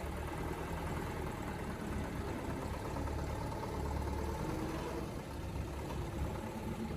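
A motor vehicle's engine running steadily, with a low rumble.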